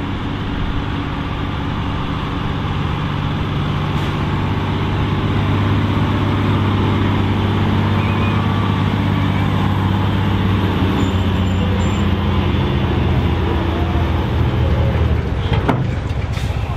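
MAN TGS 33.510 6x4 truck's diesel engine running hard under full load while dragging a pulling sled. The steady note sags slightly in pitch over the last few seconds as the load builds, with one sharp knock near the end.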